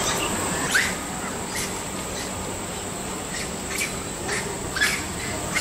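Long-tailed macaques in a troop giving several short, shrill squeals over a steady high buzz of insects.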